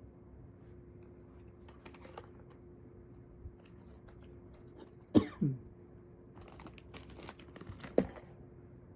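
Handling noises from iPhone packaging and accessories: light clicks and crinkling, with sharp knocks that give a short falling squeak about five seconds in and again near the end.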